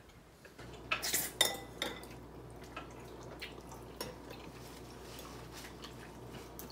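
Table eating sounds: chopsticks clicking against ceramic bowls and plates, with a noisy slurp of noodle soup about a second in.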